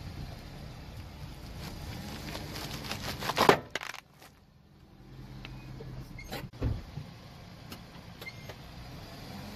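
Car tyre rolling slowly over a net bag of hollow plastic balls while the engine hums low: one loud sharp crack as a ball gives way under the tyre about three and a half seconds in, and a second, smaller crack a few seconds later.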